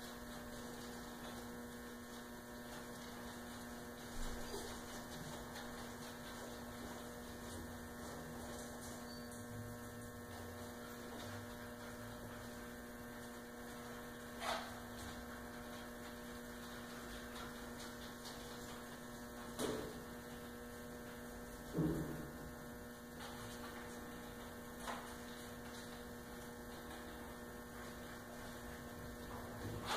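Steady electrical mains hum. It is broken a few times by brief, faint sharp sounds, some of them short squeaks that fall in pitch.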